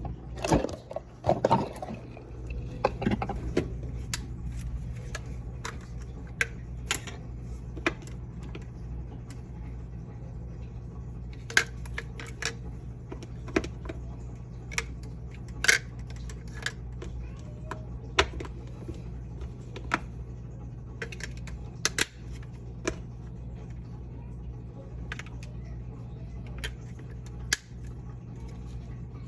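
Irregular clicks and light knocks of small hard objects being handled, busiest in the first few seconds, over a steady low hum.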